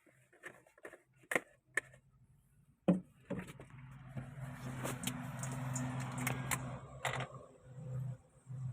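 Light metallic clicks, then a sudden knock about three seconds in, after which a machine starts a steady low hum that continues, with a hiss over it for several seconds.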